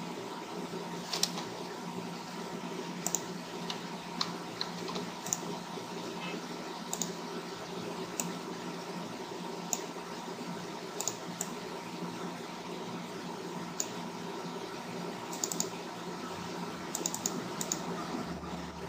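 Scattered clicks of a computer keyboard and mouse, about one every second or so at irregular intervals, some in quick pairs, over a steady low electrical hum.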